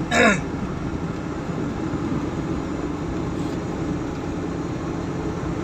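Steady engine and road noise heard from inside a moving vehicle's cabin.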